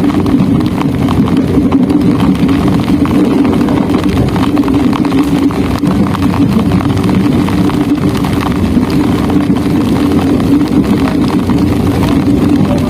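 Train running, heard from inside the passenger carriage: a loud, steady rumble with continuous fine rattling.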